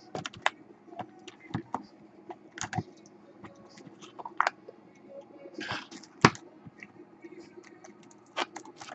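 Trading cards in plastic holders being handled in a cardboard storage box: scattered light clicks, taps and rustles, with one sharper click about six seconds in.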